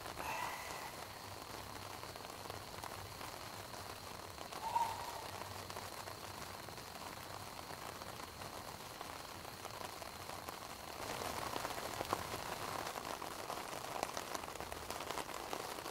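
Campfire crackling with a steady patter of small pops, a little louder from about eleven seconds in.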